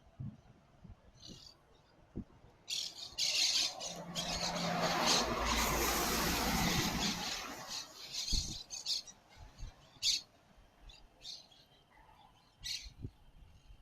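Small birds chirping in short, scattered calls, while a louder rushing noise swells and fades over about five seconds in the middle.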